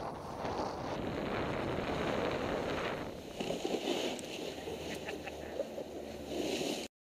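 Skis sliding over packed snow with wind rushing over a helmet camera's microphone, a steady hiss that changes character about three seconds in and picks up a few light clicks, then cuts off suddenly just before the end.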